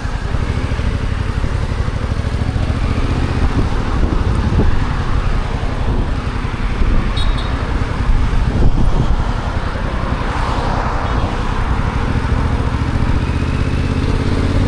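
Yamaha XSR700's stock 689 cc parallel-twin running under way, its exhaust note shifting with the throttle and climbing in pitch near the end, over road and traffic noise.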